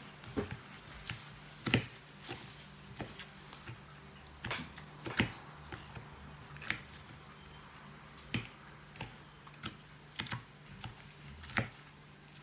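Eating a salad of lettuce, cherry tomatoes and tuna: irregular sharp clicks and crunches, roughly one a second, over a low steady hum.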